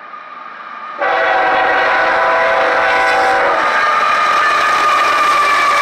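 CSX GE ES44AH diesel locomotive sounding its multi-note air horn, starting suddenly and loudly about a second in, while the lead unit of an intermodal freight train rolls past close by. The horn chord changes partway through as the locomotive passes, over the rumble of the diesel engine and the train on the rails.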